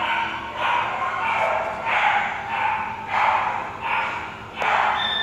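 Dogs barking repeatedly, about one bark every half second to a second.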